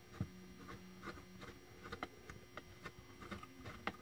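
Faint scattered clicks and taps of hands handling the wooden whirligig duck's wing and its metal hub, over a steady low electrical hum.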